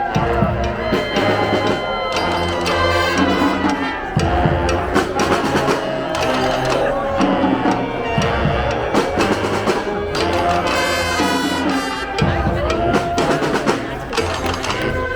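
A street brass band playing live: horns over a stepping bass line, with drums and percussion keeping a steady beat.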